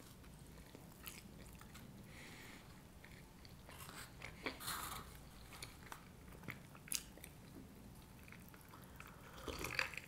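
Close-miked chewing of pizza, soft and wet, with scattered small crunchy clicks.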